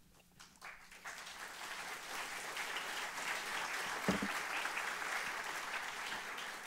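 Audience applauding, building over the first second, holding steady and starting to fade near the end. About four seconds in comes a single short thump, a drinking glass set down on the wooden lectern.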